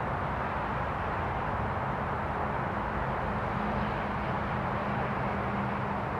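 Steady outdoor background noise: a constant rush with a low, even engine-like hum underneath, as from distant road traffic.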